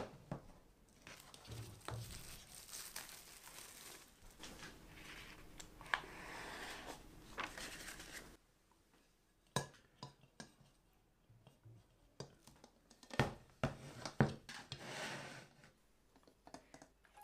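Plastic cling film crinkling and rustling as it is handled and peeled off a round cake pan. This is followed by a few sharp knocks and a brief rustle as the metal pan is handled against a plate.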